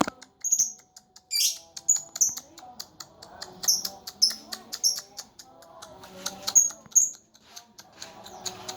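Lovebird giving short, high chirps, one every half second or so, scattered among quick faint clicks.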